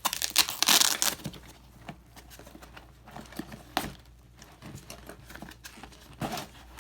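Handling noise from tool-bag gear: a loud rustle and crinkle about the first second, then a few light clicks and a sharper knock about four seconds in.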